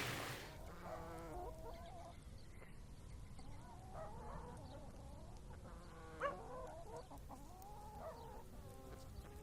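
Poultry clucking in a run of short, fairly quiet calls, with one brief louder call about six seconds in.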